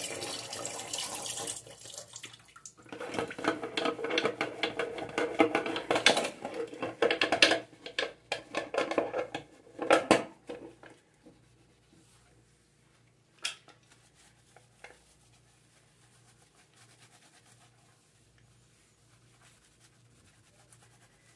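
Tap water running into a stainless-steel sink, then splashing and scraping as a pressure-cooker lid is rinsed and scrubbed with a sponge, with many small clatters, until about eleven seconds in. After that only faint sponge rubbing on the soapy lid.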